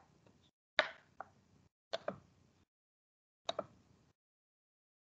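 A few sharp clicks and knocks, some in quick pairs, each with a short tail, with dead silence between them.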